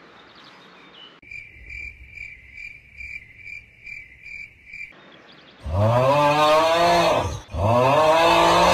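Crickets chirping, about three even chirps a second, starting and stopping abruptly. Then two long, loud, low drawn-out calls, each sliding up in pitch at its start.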